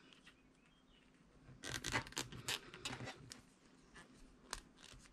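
Knitting needles clicking and scraping against each other as stitches are worked: a quick run of soft clicks and scratches from about a second and a half in, then a few single ticks.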